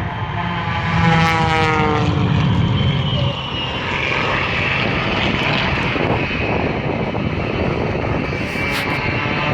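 Propeller-driven aerobatic plane passing close, its engine note falling in pitch over the first couple of seconds as it goes by, then steady engine noise.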